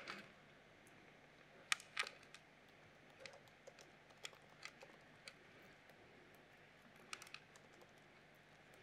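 Faint, scattered keystrokes on a computer keyboard: a few sharp clicks at irregular intervals over quiet room tone.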